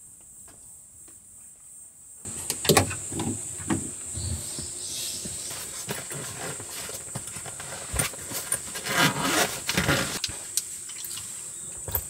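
Rustling and irregular knocks and clicks of things being handled and set down, over a steady high insect drone that starts about two seconds in.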